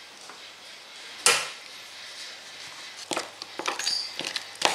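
A sharp clack from a pair of scissors about a second in, then a metal spoon scraping and tapping in a plastic jug in a quick run of small clicks as a thick bait paste is stirred.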